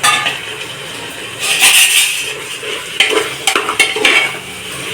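Metal spoon stirring and scraping food in a cooking pot, with clinks of the spoon against the pot and a light sizzle underneath.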